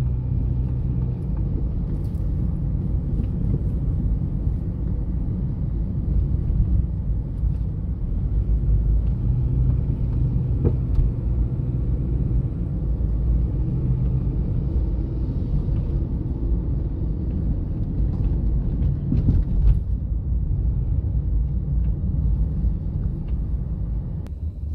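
Car driving along a city street, heard from inside the cabin: a steady low rumble of engine and road noise.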